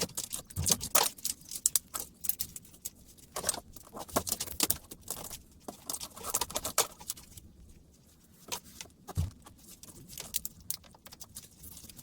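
Hard plastic laptop battery casing being pried and cracked open by hand, with quick irregular clicks, snaps and scrapes throughout, a few louder cracks among them.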